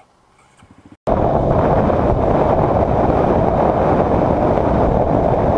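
Loud, steady wind rush on a motorcycle rider's camera microphone at road speed, with the motorcycle's road and engine noise buried in it. It starts abruptly about a second in, after a quiet opening second.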